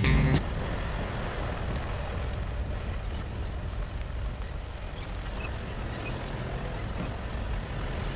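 Pickup truck driving along a dusty dirt road: a steady rumble of tyres and engine. Background guitar music cuts off about half a second in.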